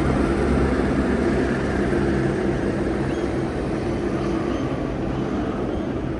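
Helicopter flying away, its rotor beat and engine running steadily and slowly fading as it moves off.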